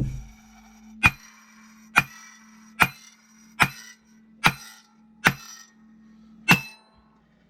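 A heavy 3–4 lb hammer striking the clutch pulling bolt threaded into a Can-Am X3 clutch: about eight sharp, ringing metal blows, roughly one a second, knocking the stubborn clutch halves apart.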